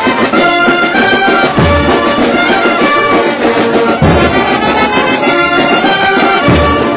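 Brass band music, with brass playing held notes over a deep thump that comes about every two and a half seconds.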